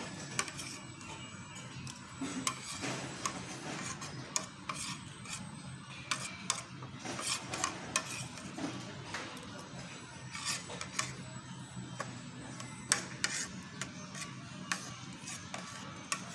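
Metal cutlery scraping and clinking on a ceramic plate, gathering up leftover rice, in irregular scrapes and sharp clicks.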